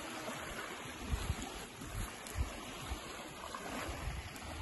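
Small waves lapping on a pebbly lakeshore, with wind gusting on the microphone in irregular low thumps.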